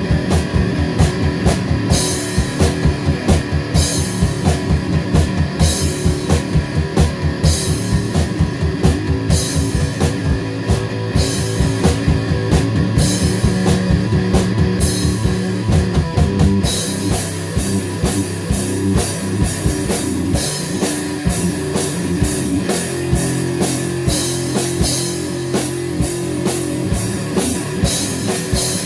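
Rock music with a drum kit playing a fast, steady beat under guitar. The cymbals crash about every two seconds, then sound continuously from a little past halfway.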